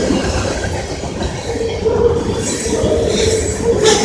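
Freight train passing close by: a dense rumble of the cars and wheels clicking over the rail joints, with a steady tone joining in about a second and a half in.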